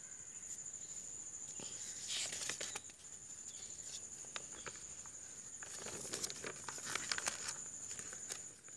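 Paper rustling and crinkling as notebook pages are handled and turned, with scattered small clicks and scrapes, busiest about two seconds in and again past the middle. A faint steady high-pitched tone runs underneath.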